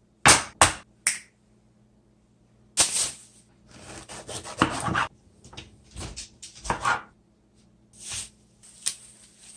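Kitchen handling noises: a string of short rustles, scrapes and knocks as things are picked up and set down, bunched near the start, around three to five seconds in, and again toward the end.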